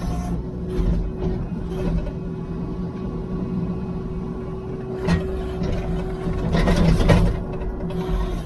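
Heavy-equipment engine running steadily, with a couple of louder, rougher stretches about five seconds in and again near seven seconds.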